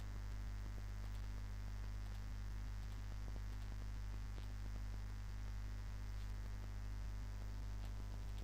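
Steady electrical mains hum with a stack of overtones and a faint hiss, picked up by the recording microphone, with a few faint clicks.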